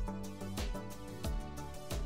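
Instrumental background music with a steady beat, about one beat every half second or so.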